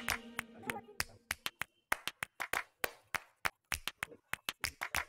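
Small scissors snipping craft paper in quick short cuts, a crisp click with each snip at about four a second, irregularly spaced. Background music fades out just at the start.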